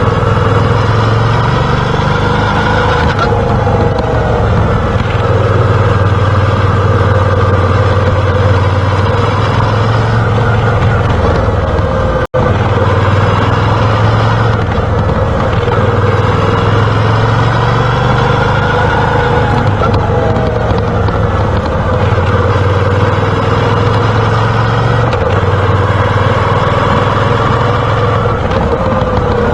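Moto Guzzi V7's 750 cc V-twin engine running as the motorcycle is ridden, its pitch rising and falling over and over through acceleration, gear changes and slowing. The sound cuts out for an instant about twelve seconds in.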